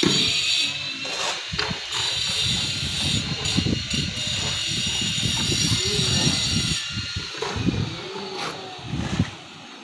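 People's voices talking, over a steady high hiss.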